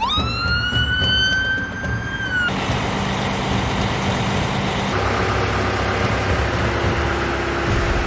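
A fire truck siren winding up, its pitch rising for about two and a half seconds before it cuts off suddenly, followed by steady vehicle engine noise.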